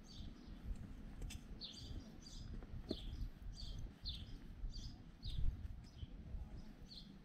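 A small bird chirping over and over: short, high, falling chirps about every half second. An uneven low rumble runs underneath.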